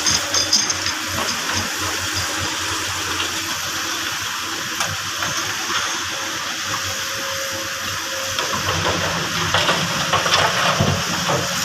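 Construction machinery running under a steady rushing hiss; a deeper engine hum comes in about eight seconds in and grows louder toward the end.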